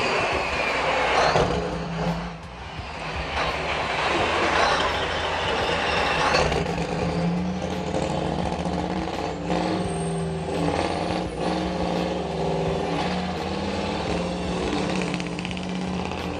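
Scania R999 show truck's V8 biturbo engine revving hard, rising and falling, while its rear tyres spin and squeal on the pavement in a smoky burnout.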